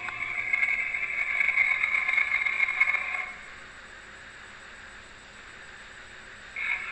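Acrocanthosaurus dinosaur sound effect: one long pitched call lasting about three seconds, then low hiss, with another call starting near the end.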